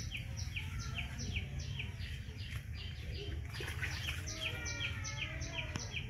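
A bird calling over and over in short, evenly repeated chirps, about two to three a second, over a steady low rumble.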